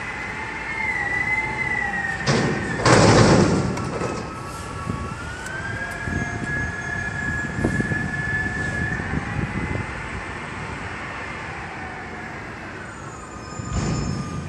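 DaDee Mantis front-loader garbage truck's hydraulics whining with the engine, the pitch gliding up and down as the lift arms and container are worked over the cab and lowered. A loud burst of noise comes about three seconds in, while the container is tipped over the hopper, and a shorter one near the end.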